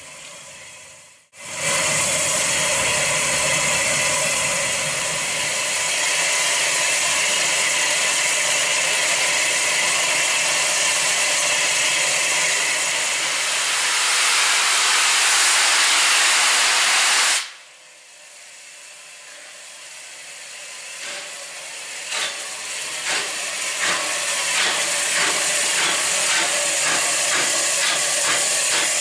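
Bulleid West Country class steam locomotive 34092 City of Wells blowing off a loud, steady hiss of steam that stops abruptly after about sixteen seconds. Its exhaust beats then start up and come louder and faster as the engine pulls away.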